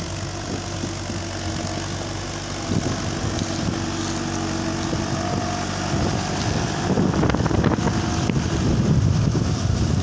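Landini Super 8865 tractor's diesel engine running steadily under load while it pulls a disc plough. From about seven seconds in, wind buffeting on the microphone rumbles louder over it.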